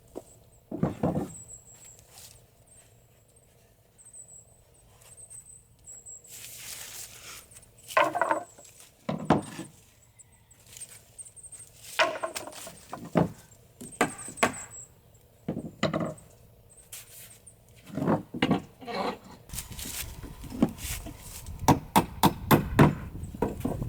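Hammer knocking wooden deck balusters loose: irregular blows and thunks on wood, with high squeals from nails working out of the wood. The blows come quicker near the end.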